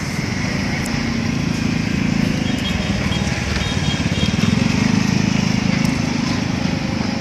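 An engine of construction machinery running, with a rapid low pulsing that swells louder about two seconds in and again around five seconds.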